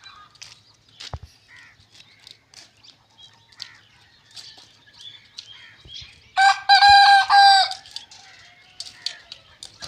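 A rooster crows once, loudly, for about a second and a half just past the middle. Hens cluck softly in short calls before and after.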